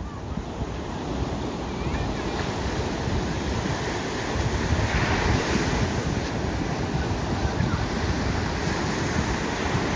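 Sea surf breaking and washing up a sandy beach in a steady rush, with wind buffeting the microphone; the surge swells about five seconds in.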